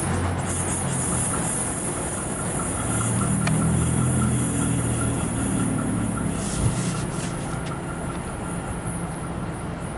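Diesel locomotive working as a train pulls away: a steady low engine rumble that swells for a couple of seconds in the middle. A single low thump comes about two-thirds of the way through.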